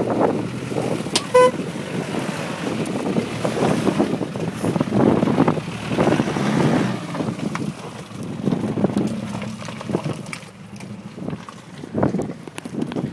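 Land Rover Discovery driving off-road, its running noise mixed with gusting wind buffeting the microphone. One short beep sounds about a second and a half in.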